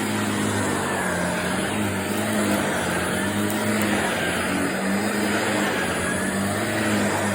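Vacuum cleaner running steadily over carpet, its motor hum and whine wavering slightly in pitch.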